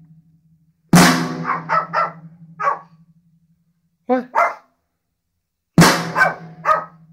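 A drum of a drum kit is struck twice, about a second in and again near the end, each hit ringing on with a low tone. A dog barks at the drums in short runs after each hit and twice in between.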